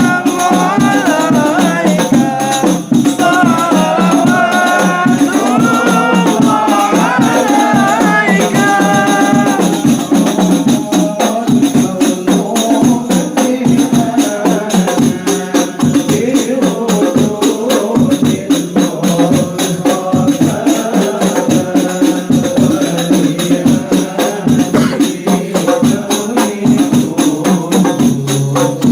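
Devotional group singing of sholawat with rebana frame drums. An ornamented sung melody leads for the first nine seconds or so, then fast, dense drumming with jingles takes over under the voices.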